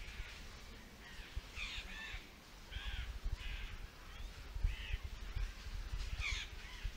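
A leopard cub calling with a series of short, high-pitched mews, about seven in all, spaced irregularly, over a low, uneven rumble.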